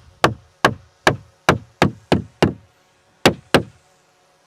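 A wooden oarlock being hammered down into its slot in the gunwale of a wooden boat: about nine sharp knocks, seven at an even pace of roughly three a second, a pause, then two more near the end.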